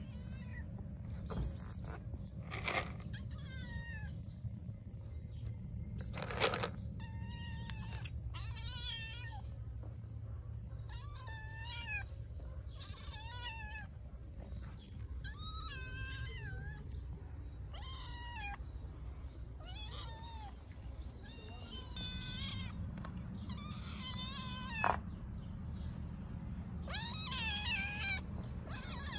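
A stray mother cat and her kitten meowing over and over, a call every second or two, begging for food because they are hungry. A steady low rumble sits underneath.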